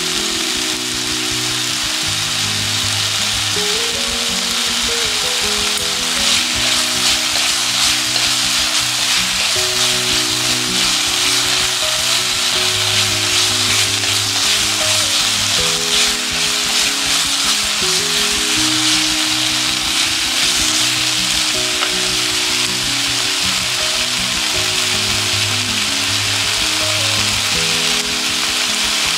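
Chicken pieces sizzling as they fry in an electric skillet in their own fat, with no oil added, stirred now and then with chopsticks. Soft background music with held notes plays underneath.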